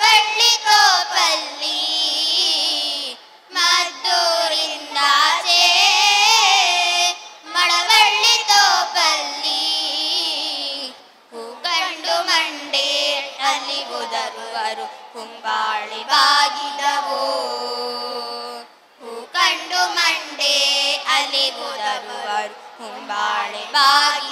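A group of children sing a Kannada folk song (janapada geete) together into microphones, unaccompanied. They sing in phrases of a few seconds, with short pauses for breath between them.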